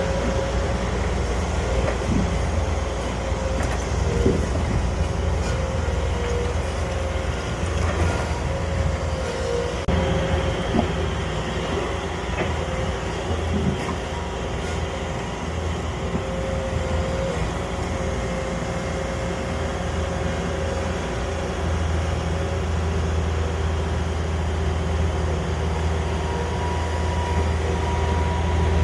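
Bobcat skid-steer loader's engine running steadily, with a few scattered knocks.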